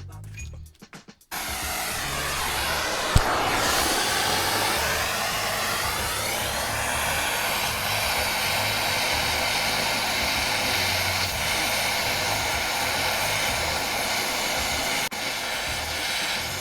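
Steady rushing blast of a heating tool playing on a rust-seized control-arm bolt. It starts about a second in, its pitch sweeps down and back up briefly, and it dips for a moment near the end.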